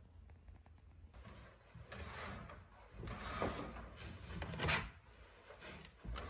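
A heavy wooden pallet being shoved along on wooden rollers: scraping and rumbling, with louder knocks about three and a half and four and a half seconds in.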